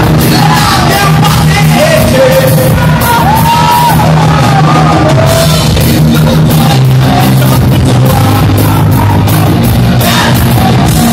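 Live rock band playing loud: electric guitars, bass guitar and drum kit with a male lead vocal, whose sung line stands out most in the first half. The recording is close to overload and sounds distorted.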